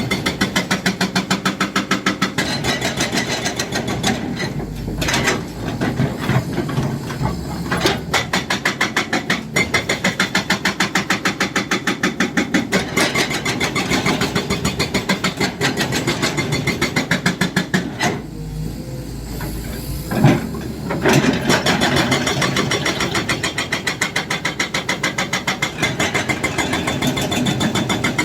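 Excavator-mounted hydraulic breaker hammering rapidly, several blows a second, over the excavator's running diesel engine. The hammering stops briefly twice, leaving only the engine's low rumble.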